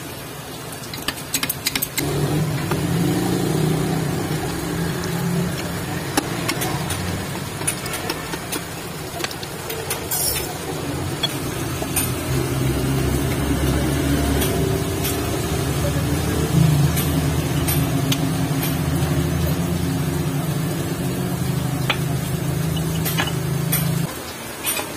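A motor running steadily with a low hum, starting about two seconds in and cutting off shortly before the end, with scattered sharp metal clicks and taps over it.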